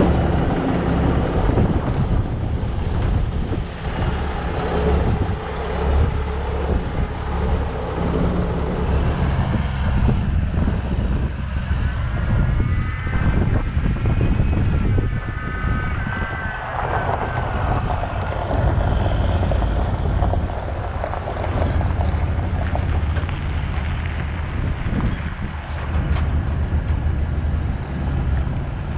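A truck engine running steadily with wind buffeting the microphone. A higher whine rises and falls for a few seconds about halfway through.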